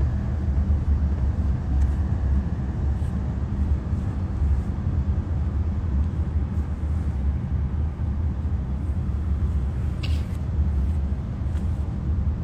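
Steady low rumble of a vehicle on the move, heard from inside the cabin.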